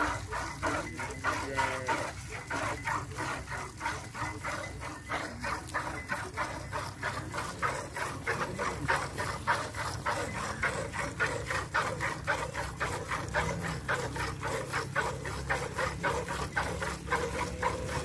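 Jersey cow being milked by hand: jets of milk squirting into a steel bucket in a quick, steady rhythm of about three squirts a second.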